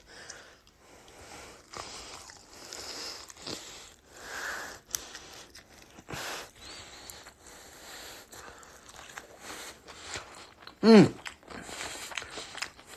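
A person biting into and chewing a sauced chicken wing, with small crunches and wet mouth clicks. A short, loud hum from the voice about eleven seconds in.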